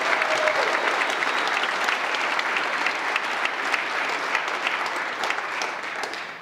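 Audience applauding at the end of a talk: a dense patter of many people clapping, thinning out and stopping near the end.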